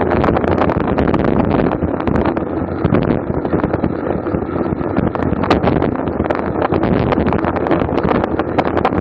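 Wind rushing over the microphone of a camera on a racing bicycle at speed: a loud, steady rush with a constant crackle of small knocks.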